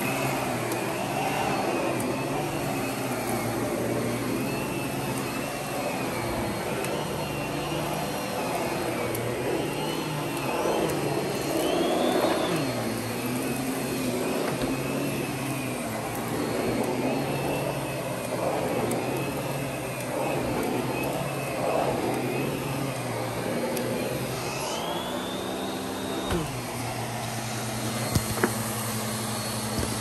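Miele vacuum cleaner running continuously, its motor whine wavering and rising in pitch now and then. Near the end the sound shifts and settles into a steadier hum, with a couple of sharp clicks.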